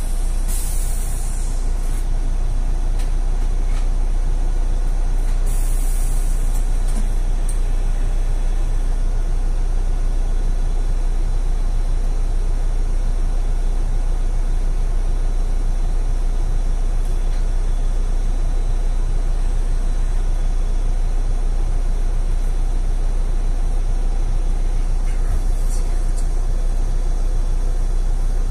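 Mercedes-Benz Citaro facelift city bus idling at a standstill, a steady low engine rumble heard from inside the cabin. Short hisses of compressed air come from the bus's air system just at the start and again about six seconds in, with a fainter one near the end.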